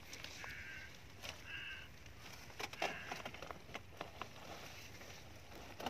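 Leaves rustling, with scattered small knocks and clicks, as a metal hook pole is worked through dense bushes. A bird calls three times in the background.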